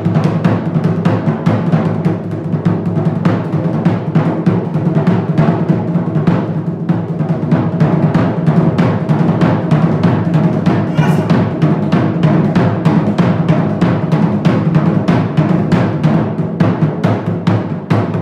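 Japanese taiko drums played in a fast, unbroken run of strikes.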